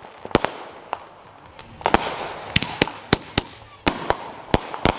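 Rebel Yell 200-gram consumer firework cake firing: shells bursting in the sky as a string of sharp bangs, about a dozen at uneven intervals, some in quick pairs, over a faint hiss.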